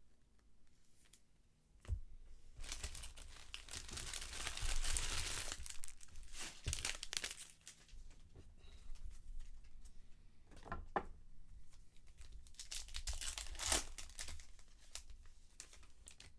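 Trading-card pack wrappers torn open and crinkled, in two noisy stretches about three seconds in and about twelve seconds in, with a few sharp clicks between.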